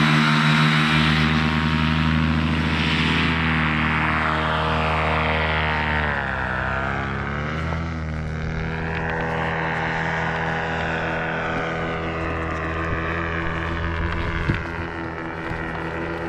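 Paramotor engine and propeller running steadily. About six seconds in, the pitch falls as the throttle eases, then climbs back within two seconds and holds steady at a slightly lower level.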